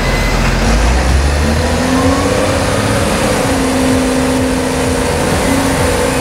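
Case wheel loader's diesel engine working under load as the bucket pushes into a manure pile; its pitch rises about a second and a half in and then holds high and steady.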